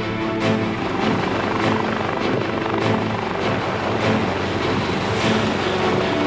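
AgustaWestland AW139 twin-turbine helicopter: a steady noise of rotor and engines.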